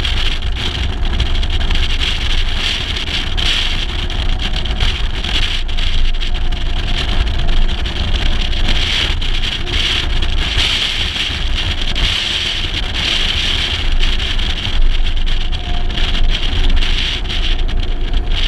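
Mercedes-Benz 300 SL under way, heard from a camera mounted outside on its flank: a steady rush of wind and road noise over the microphone, with the car's straight-six engine running underneath. The engine note climbs near the end.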